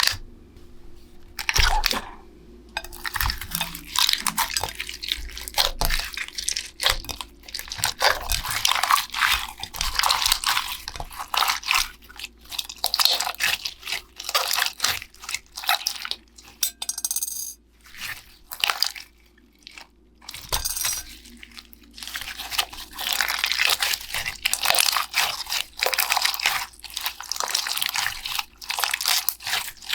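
Irregular crunching, crinkling and clicking of hands handling toys and sticky slime during a clean-up, in dense bursts with short pauses.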